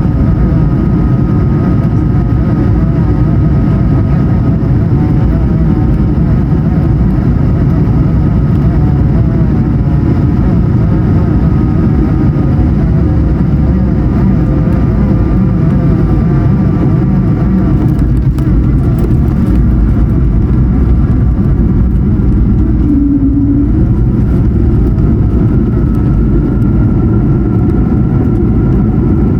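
Airbus A220-100 cabin noise: the Pratt & Whitney PW1500G geared turbofans run with a steady rush of air, and a whining fan tone rises slightly near the end.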